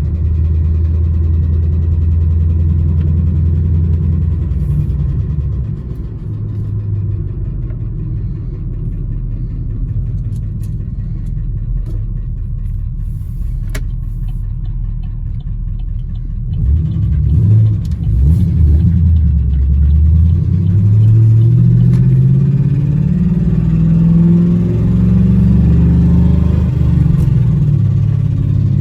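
Camaro SS's LS3 6.2-litre V8 running, the engine the owner suspects of lifter tick or rod knock. It runs steadily at first, settles lower about five seconds in, then picks up in quick surges around halfway and climbs to a higher, steady engine speed over the last third.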